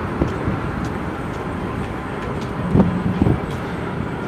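Steady city street noise, a low traffic rumble, with two short low thumps about three seconds in.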